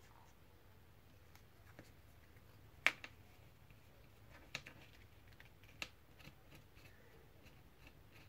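Paper cards being handled and pressed down on a craft mat: faint paper movement with a few sharp taps, the loudest about three seconds in.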